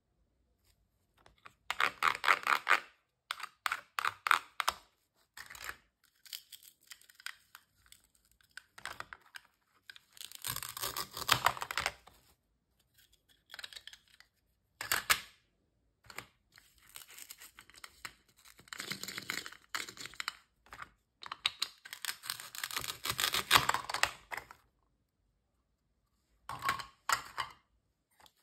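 Velcro-joined plastic toy fruit and vegetables being cut and pulled apart, the velcro halves ripping open with a crackly tearing sound. It comes in several bursts separated by short quiet pauses, with small plastic clicks and taps from the pieces being handled.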